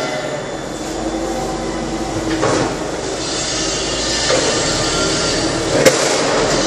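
A propane forklift runs steadily as it drives over a steel dock plate, with metal clanks as its wheels cross the plate. The loudest is a sharp metal bang near the end.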